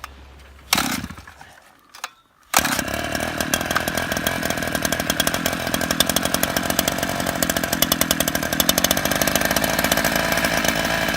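Gas-powered ice auger engine running hard, drilling a hole through the ice. It comes in suddenly about two and a half seconds in and runs on steadily with a fast, even buzz, after a short noise about a second in.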